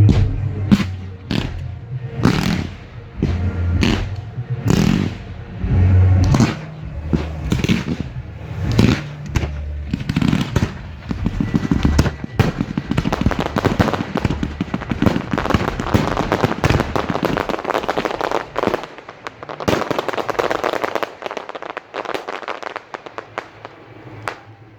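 A fireworks display going off close by: a rapid run of sharp bangs for the first ten seconds or so, giving way to a dense, continuous crackling that thins out near the end.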